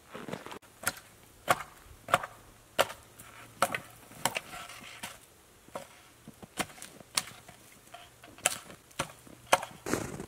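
Limbing a felled dead spruce by hand: a run of sharp woody chops, about one every half to two-thirds of a second, with a brief lull near the middle.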